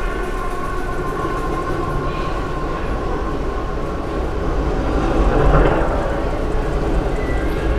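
Movie soundtrack played through a KMS IGBT stereo subwoofer amplifier board and 8-inch subwoofers: a steady, rumbling, train-like noise with heavy deep bass, swelling a little about five seconds in.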